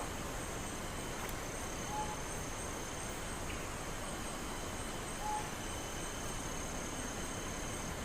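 Tropical forest ambience: insects hold a steady high-pitched drone, one of them pulsing, while a bird gives two short whistled notes about three seconds apart.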